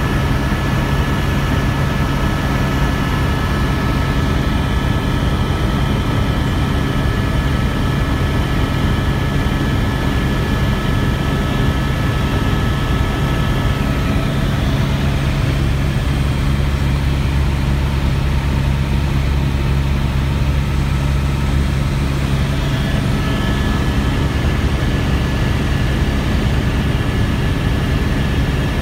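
Helicopter in flight heard from inside the cabin: a loud, steady engine and rotor drone with a low hum and thin high whining tones, which fade out about halfway through and partly return near the end.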